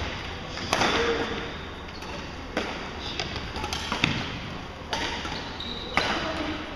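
Badminton rally: five sharp racket strikes on the shuttlecock, one to two seconds apart, each echoing in a large gymnasium.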